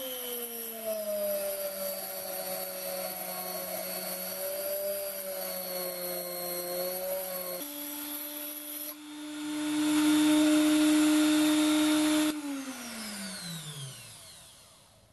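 Hilda rotary tool mounted on a lathe, running while drilling a small hole into a brass flywheel: its motor whine sags under load, jumps higher about halfway through, and turns louder and harsher for about three seconds. It is then switched off and winds down in a falling whine.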